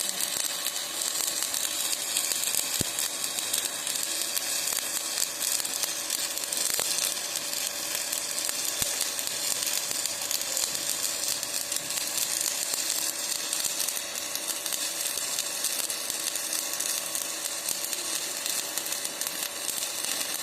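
Stick (shielded metal arc) welding arc crackling and sizzling steadily as a coated electrode lays a fill bead on steel plate.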